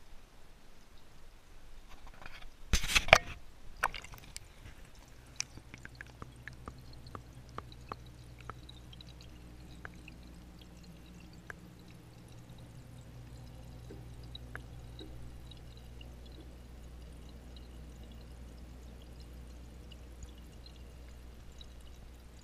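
Water in a fish tank heard by a submerged camera: a loud rush of water about three seconds in, then scattered clicks that thin out, settling into a steady low hum.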